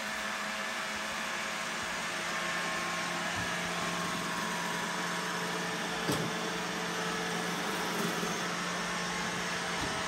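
iRobot Roomba i3+ robot vacuum running across a hardwood floor: a steady whir of its motor and brushes, with a short click about six seconds in.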